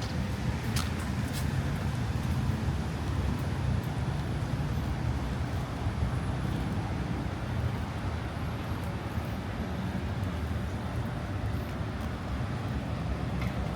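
Steady road traffic noise from cars on a city street, a continuous low rumble and tyre hiss.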